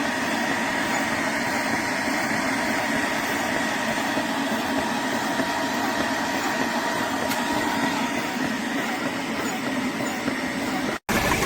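Portable high-pressure PCP air compressor running steadily: an even mechanical hum with a constant high whine. It cuts off near the end, followed by a brief louder burst of a different sound.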